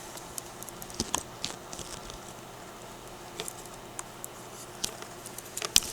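Scattered light clicks and taps of small parts being handled, with a sharper double click near the end.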